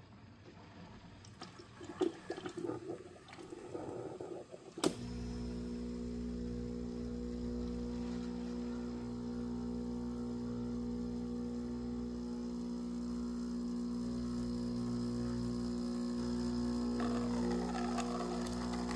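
Ninja Luxe Cafe espresso machine brewing a shot: a sharp click about five seconds in, then its pump hums steadily as the water is forced through the coffee.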